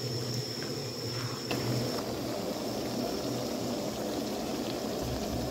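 Shrimp and broccoli stir-fry simmering in the pan, a steady bubbling hiss.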